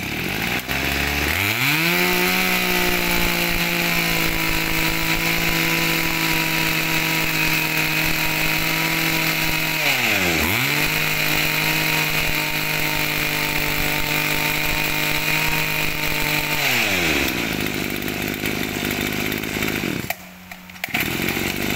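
Mitsubishi TM24 24cc two-stroke brush cutter engine revved from idle up to full throttle and held there steadily. About ten seconds in the revs dip briefly and climb straight back. Near the end the throttle is released and the engine drops back to idle.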